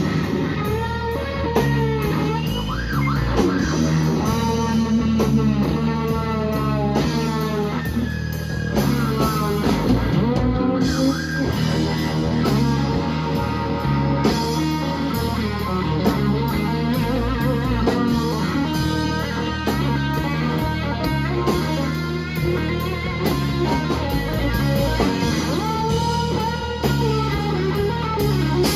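Live blues-rock power trio playing an instrumental passage: an electric guitar through a Fender Super Reverb amp solos with string bends and long sustained notes over electric bass and a drum kit.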